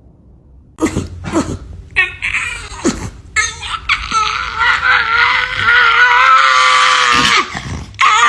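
A dog barks several times in short sharp barks, then gives a long wavering howl that cuts off abruptly near the end.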